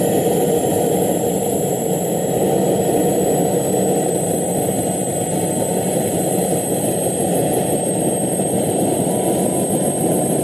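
Turbine utility helicopter with a two-bladed main rotor running on the ground, rotors turning: a steady din of turbine and rotor. Over it a thin high whine slowly rises in pitch.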